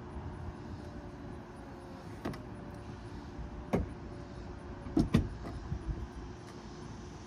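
Power soft top of a BMW M240i convertible closing: a steady motor hum with a faint whine, broken by a few sharp clunks from the top's mechanism, the loudest two in quick succession about five seconds in.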